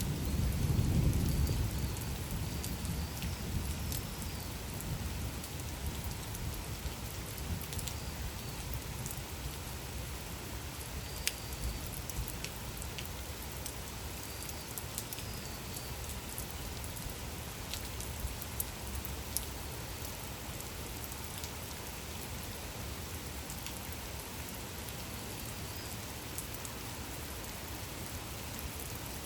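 Steady rain falling, with individual drops ticking sharply here and there. A low rumble of thunder dies away in the first couple of seconds.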